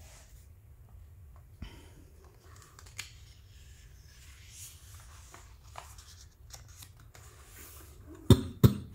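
Page of a paperback picture book being turned by hand, with soft paper rustles and light handling ticks, then two sharp knocks in quick succession near the end.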